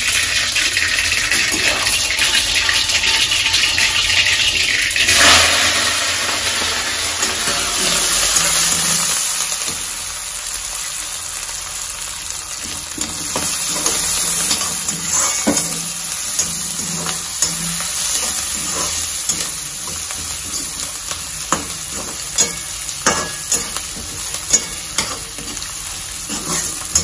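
Tempering for curd rice (mustard seeds, green chillies, ginger, cashews and curry leaves) sizzling in hot oil in a steel wok, with a louder surge of sizzling about five seconds in. The food is stirred with a flat metal spatula, and sharp clicks of the spatula against the pan come through the second half.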